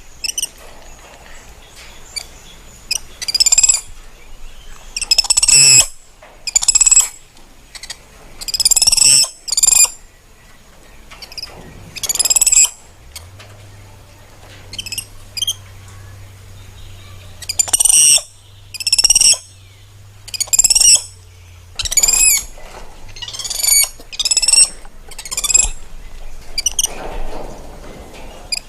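Spider monkey giving a long series of short, high-pitched chirping calls, one every second or two, each with a slight waver in pitch.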